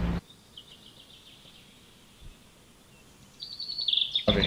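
Faint bird chirping: a few short, high chirps in the first second or so, then a quicker run of chirps near the end.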